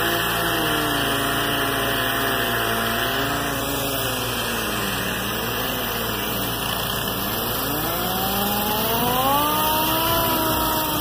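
Pneumatic Hookit orbital sander with its orbital action locked, spinning its pad against a car's painted body panel. Its air-motor whine dips and climbs in pitch several times as the pad is pressed and eased, and is highest near the end, over a steady low hum.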